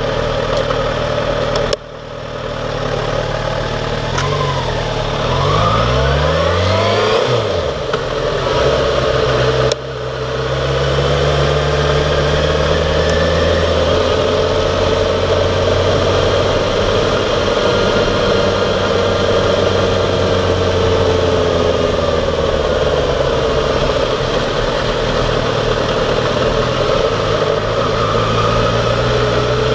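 Yamaha XJ6F's 600cc inline-four engine running on the move, its pitch rising and falling in the first several seconds, then settling to a steady cruise. The sound cuts off abruptly twice in the first ten seconds.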